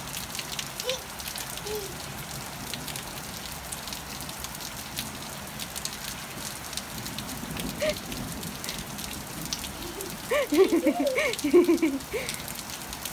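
Light rain falling on a wet concrete path and lawn: a steady patter of many small drops. About ten seconds in, a toddler lets out a short run of high babbling vocal sounds, louder than the rain.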